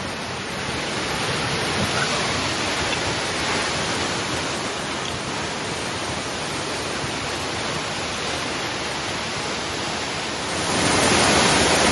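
Steady rush of a large waterfall crashing down close by, growing louder about ten seconds in.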